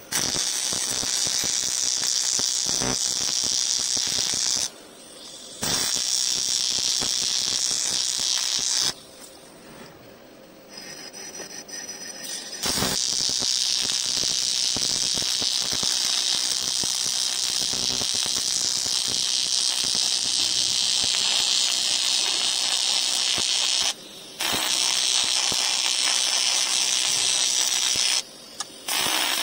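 TIG welding arc on an aluminium scooter crankcase, a steady high hiss with a buzz, as the broken gearbox bearing housing is built back up with filler rod. The arc stops and restarts several times: briefly about five seconds in, for a few seconds from about nine seconds in before building back up, and twice briefly near the end.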